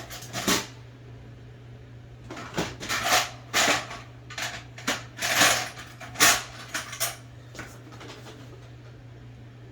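Irregular clicks and clattering knocks of tools and metal parts of an IBM Selectric II typewriter being handled, in bursts through the middle, over a steady low hum.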